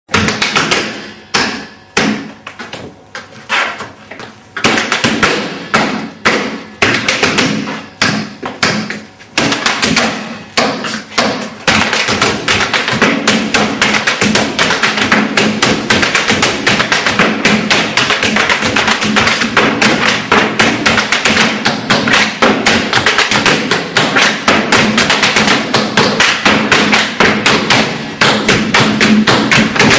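Tap shoes striking a stage floor in rhythmic tap-dance footwork. The taps come in separate, spaced phrases for about the first twelve seconds, then turn into a dense, near-continuous stream of taps as three dancers tap together.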